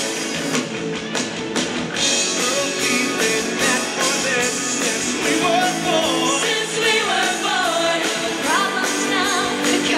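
Pop-rock song with singing over a steady drum beat, played through a show's sound system.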